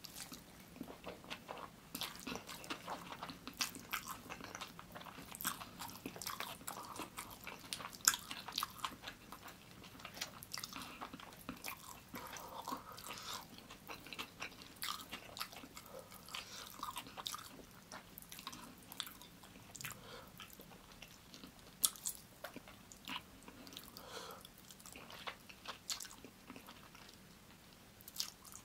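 Close-miked chewing of chicken biryani eaten by hand: a steady run of wet mouth sounds and small clicks. Two sharper, louder clicks stand out, about a third of the way in and again about three quarters of the way in.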